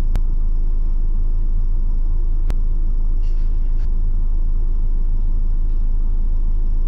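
Car engine idling steadily, a low rumble, with a couple of faint clicks.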